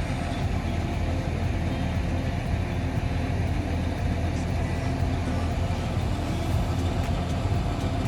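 Excavator engine running steadily, an even low drone.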